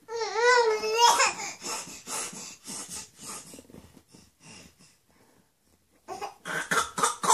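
A baby's voice: a drawn-out, wavering squeal about a second long, then a run of short laughing bursts that fade away, and babbling again near the end.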